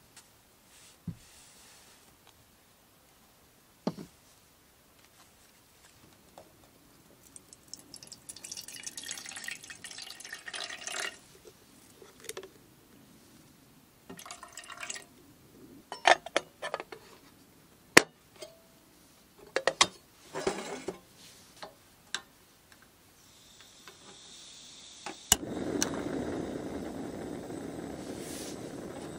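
Water poured into a small camp kettle, rising in pitch as it fills, then metal clinks and knocks as the kettle and lid are handled. Near the end, gas hisses from a cartridge single-burner camping stove, its piezo igniter clicks once, and the burner lights and burns with a steady loud hiss.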